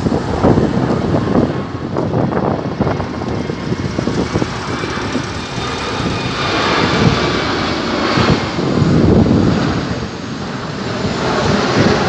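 Jet engines of an Airbus A330 airliner on final approach overhead: a steady rumble, with a faint high whine that comes in about halfway and grows as the aircraft nears.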